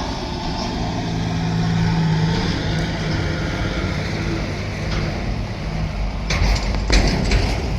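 A vehicle engine running steadily with a low hum, with a few sharp knocks or clatters near the end.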